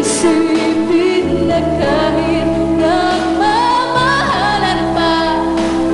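A woman singing a Tagalog love ballad into a microphone over instrumental accompaniment. The melody rises about halfway through, and she holds a long note through the second half.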